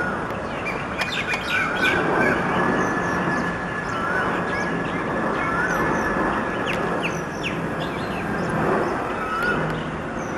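Birds chirping and calling again and again, with a short wavy call repeating every few seconds, over the steady rumble of a Boeing 747 freighter's jet engines on final approach.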